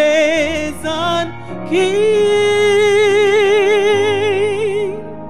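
A woman singing a gospel worship song into a microphone over soft instrumental accompaniment: a short phrase, then one long held note with a wide vibrato that ends just before the close.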